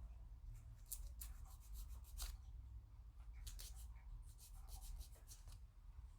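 Faint, irregular light clicks and scratchy scrapes of small plastic model-kit parts being worked by hand, over a low steady hum.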